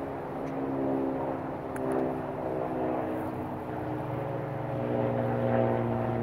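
An engine droning steadily, its pitch drifting slightly lower in the last few seconds.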